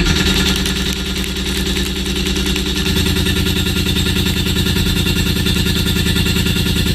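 A machine running steadily with a fast, even pulsing; its tone changes about three seconds in.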